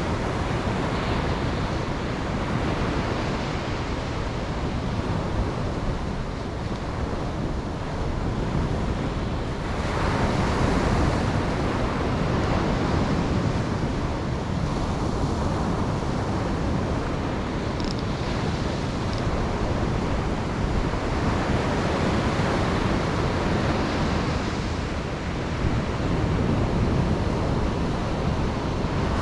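Ocean surf breaking on a beach, a steady wash of noise that swells and ebbs as waves come in, with one louder surge about a third of the way through. Wind buffets the microphone throughout.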